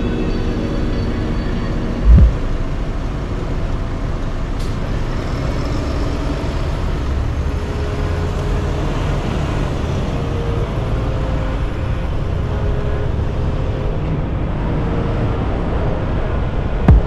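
A car driving at road speed, with steady engine and road noise. A single loud low thump comes about two seconds in, and another just before the end.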